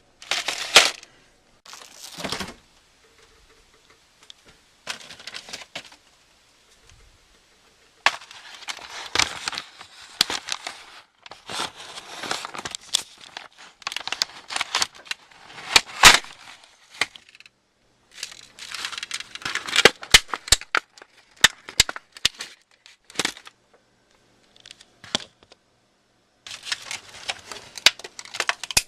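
Plastic packaging crinkling and crackling in irregular bursts, with sharp cracks, as the wrapping of a chocolate tool kit is handled and torn open.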